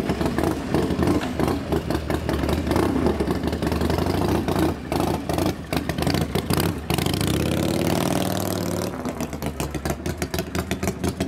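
Custom chopper motorcycle engine running and being ridden off, its exhaust pulsing fast and unevenly. Around eight seconds in, the engine note rises and falls.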